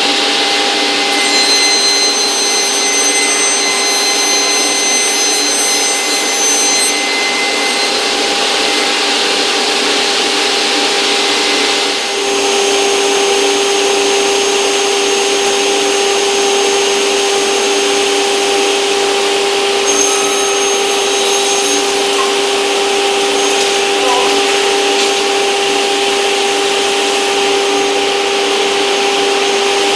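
A woodshop power tool running steadily with a constant motor hum, its tone shifting slightly about twelve seconds in.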